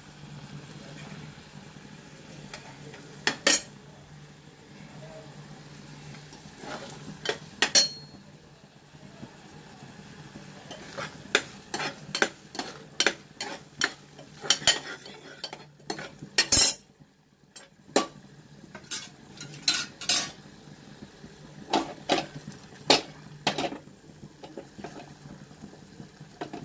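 Metal ladle scraping and clinking against an aluminium pressure-cooker pan as thick rose apple jam is stirred while it cooks down to thicken. The sharp clinks are scattered, a few in the first half and many more in the second half.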